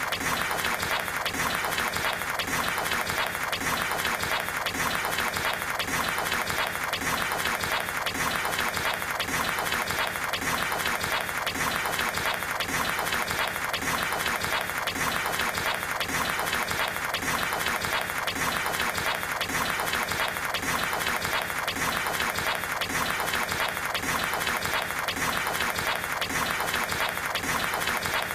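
Table-tennis balls struck back and forth at impossible speed, paddle and table hits so close together that they merge into one continuous dense clatter of clicks with no break.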